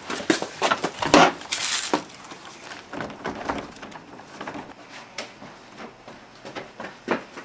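Irregular scuffs and rustles of a person moving about on foot, with a louder, longer scraping rustle about a second in.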